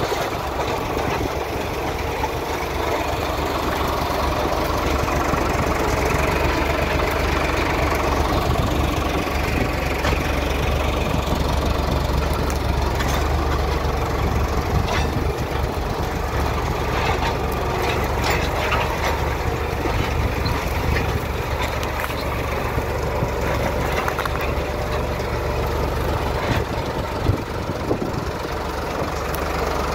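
Diesel tractor engine running steadily, with a few short clicks and knocks on top and one sharp knock near the end.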